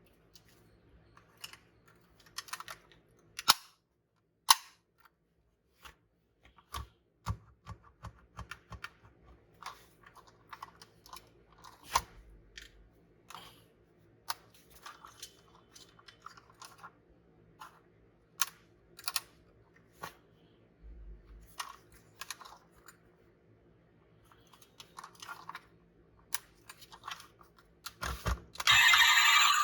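Hands handling a diecast model car and its packaging: scattered clicks, taps and crinkles of plastic and cardboard, with short quiet gaps between. A much louder sound starts about a second before the end.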